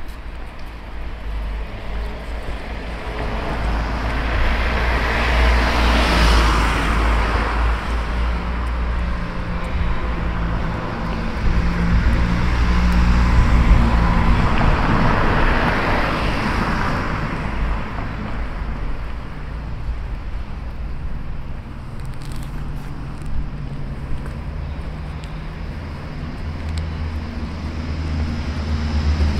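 Street traffic: two vehicles pass, one about six seconds in and another about ten seconds later, over a steady low engine hum.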